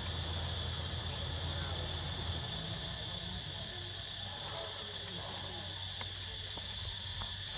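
Steady high-pitched chorus of forest insects such as crickets or cicadas, with a low hum underneath that fades out about two seconds in.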